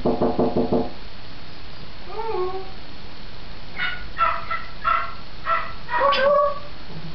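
African grey parrot calling: a quick stuttering run of notes at the start, a sliding call about two seconds in, then a string of short higher notes from about four seconds that ends in a louder sliding call.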